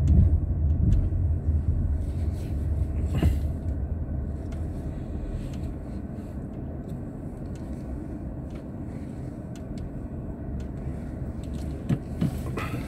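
Car engine and tyre rumble heard from inside the cabin as the car is manoeuvred slowly into a parking space. The low rumble is loudest for the first few seconds, then settles to a quieter steady hum, with a few faint clicks.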